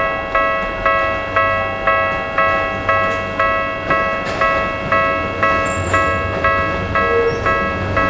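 Japanese railway level crossing's electronic warning bell ringing about twice a second, signalling an approaching train. Beneath it, the train's low running rumble grows toward the end.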